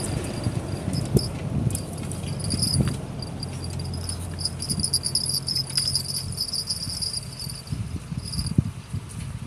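Insects chirring: a steady, wavering high trill that stops shortly before the end, over a low rumble and a few faint clicks.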